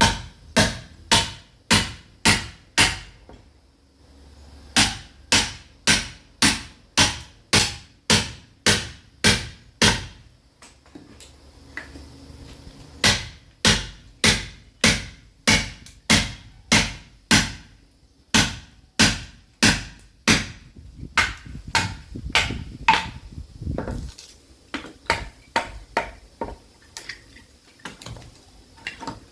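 Sledgehammer striking a steel chisel driven into a caviúna hardwood log to split it, in runs of sharp blows about two a second with short pauses between, the blows lighter and less regular near the end.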